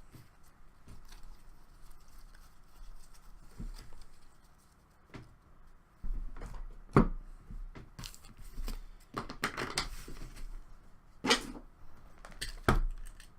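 Cardboard and foil trading-card packaging being handled and torn open, with rustling and several sharp clicks and taps as boxes and cards are moved about.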